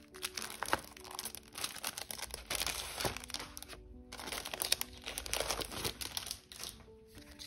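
Crinkling and rustling of a thin plastic zipper case and paper inserts being handled, in quick irregular crackles, with soft background music of held notes underneath.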